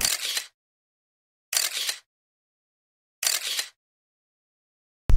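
An edited-in sound effect over a title card: three identical short noisy hits, about a second and a half apart, with dead silence between them.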